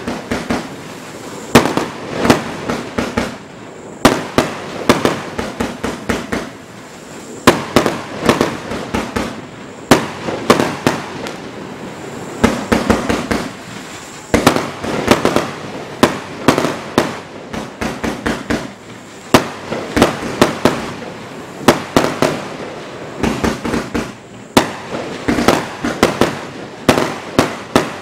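Gemstone Fireworks Skull Crusher, a 100-shot 1.3G compound barrage with 30 mm tubes, firing shot after shot. Sharp bangs and crackles come in rapid clusters every second or two.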